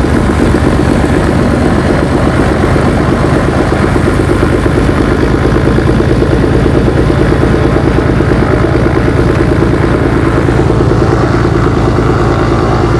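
Beechcraft Baron's six-cylinder piston engine idling just after start-up, heard from inside the cabin: a loud, steady, fast-pulsing run.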